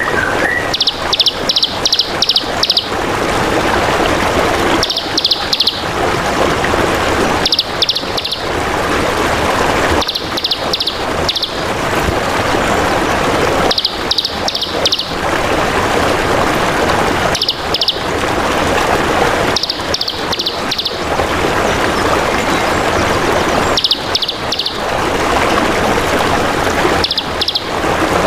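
A small songbird calling in repeated short bursts of quick, high chirps, five or six notes to a burst, every few seconds, over the steady sound of trickling water.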